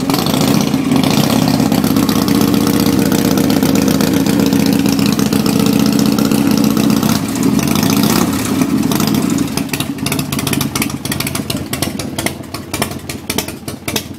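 Harley-Davidson motorcycle's V-twin engine running steadily at idle. About halfway through the note shifts briefly, and for the last few seconds it comes through quieter and more uneven.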